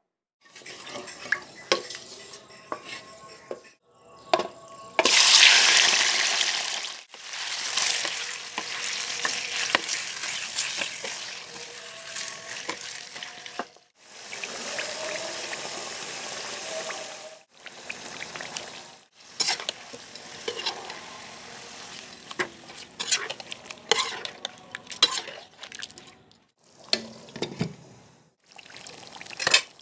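Chicken korma ingredients frying in hot oil in a pan, sizzling loudest about five seconds in, with a spoon stirring and clicking against the pan. The sound stops and restarts abruptly several times.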